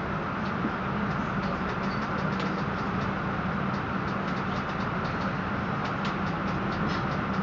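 Steady running noise inside a moving passenger train carriage: a constant low hum under a rushing noise, with faint irregular light clicks.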